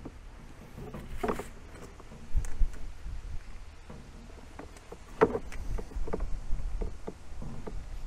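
Close handling noises: braided vinyl hose rubbing and being worked onto a pump fitting, and a steel double-ear clamp being squeezed shut with pincers. The result is a string of irregular clicks and scrapes with a few low thumps.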